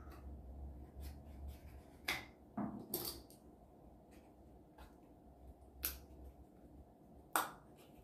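Sparse light clicks and taps of small pieces of a miniature house kit being handled and pushed into its roof, the sharpest click near the end.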